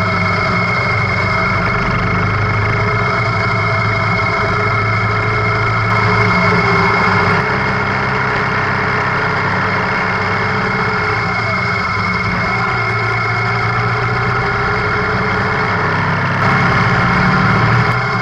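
Motorcycle engine running steadily at low speed while under way. It gets briefly louder twice, about six seconds in and again near the end.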